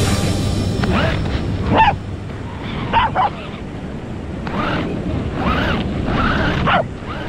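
Corgis barking: about eight short barks in an uneven string, over a low rumble.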